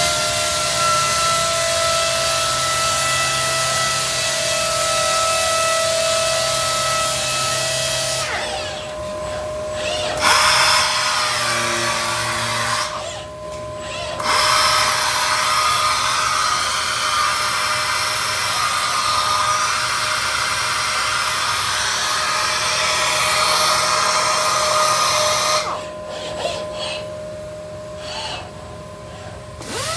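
Random orbital sander on a robotic arm sanding a raised-panel door: a steady hiss with a whine running through it. It drops away briefly about 8 and 13 seconds in, and for a few seconds near the end as the sander lifts off the panel.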